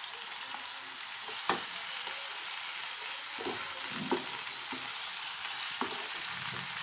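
Sliced onions and chopped tomato sizzling steadily in hot mustard oil in a frying pan, with a few sharp clicks of a metal utensil as the pan is stirred.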